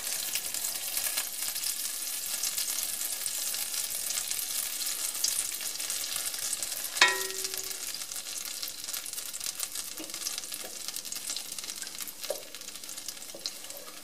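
Butter sizzling and crackling as it melts in an enamelled steel pan, stirred with a wooden spatula. A single sharp tap with a short ring comes about halfway through.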